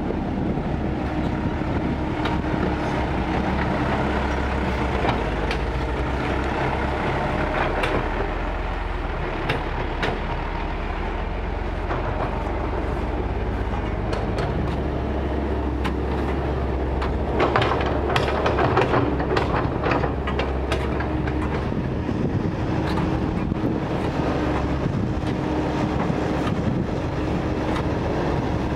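Kobelco hydraulic excavator running steadily while digging and loading soil into a dump truck, with a louder stretch of clanking and scraping about two-thirds of the way through.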